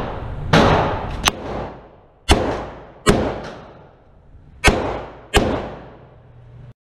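Ruger LCR .357 revolver firing .38 Special +P rounds: five shots at uneven intervals of about one to one and a half seconds, each ringing on in the room's echo, with a separate sharper crack about a second in. The sound cuts off suddenly near the end.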